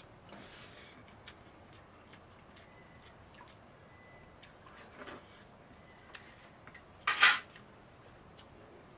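Eating from a stainless steel pot by hand, with light ticking throughout. A fainter sound comes near five seconds in, and about seven seconds in the pot gives one short, harsh scrape, the loudest sound here.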